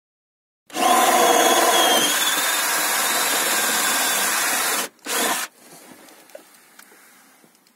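Power drill running for about four seconds as it bores the cable hole up through the camper's roof from inside, then stopping and giving one short second burst; faint clicks of handling follow.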